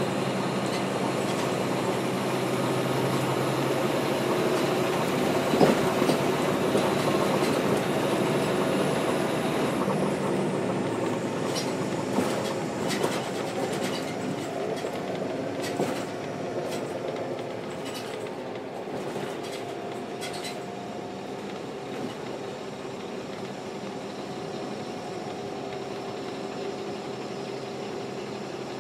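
NABI 416.15 transit bus running on its Caterpillar C13 ACERT diesel with a ZF six-speed automatic. About ten seconds in, the engine note and a high whine fall away and it settles to a quieter steady idle, with a spell of clicks and rattles from the bus partway through.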